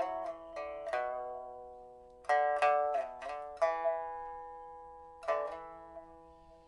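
1991 Shen Huanchun pipa with Bali rosewood body, freshly repaired with a new soundboard and frets, test-played: slow, single plucked notes that ring and fade, with a quicker run of notes about two to three and a half seconds in. Several notes are bent down and back in pitch. A last note about five seconds in dies away almost to nothing by the end.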